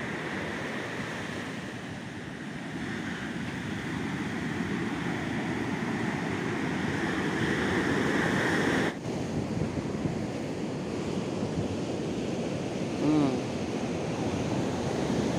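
Ocean surf breaking and washing up a beach, a steady rushing noise, with wind buffeting the microphone. The noise drops abruptly about nine seconds in, then carries on a little quieter.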